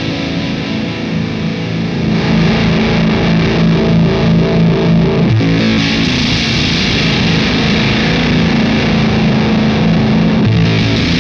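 Electric guitar played through a Fender Shields Blender octave-up fuzz pedal in its classic Blender mode. The clean blend is turned up as he plays, so the dry signal drops out and the fuzz grows thicker and brighter about halfway through.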